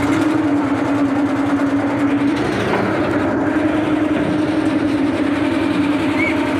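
Boat engine running steadily, a loud drone with a constant hum whose pitch steps up slightly about two and a half seconds in.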